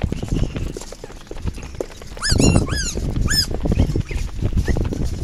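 A quick run of short, high-pitched animal yelps, each rising then falling in pitch, about two seconds in, over low rustling and footfalls.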